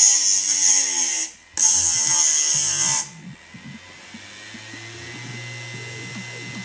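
A screwdriver's steel tip scraping against the spinning platter of a hard-disk-motor grinder: a hissing scrape that breaks off briefly about a second in and stops about three seconds in. After that only the drive motor's faint running whine is left.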